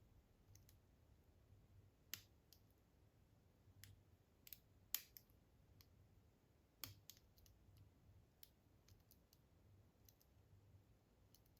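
Faint, irregular clicks of a lock pick working the pins of a six-pin ASSA D12 pin-tumbler lock, with a few louder clicks through the middle.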